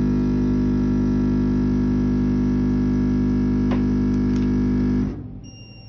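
A Vevor weighing-and-filling machine's feeder runs with a steady hum while it dispenses a weighed portion, then cuts off suddenly about five seconds in.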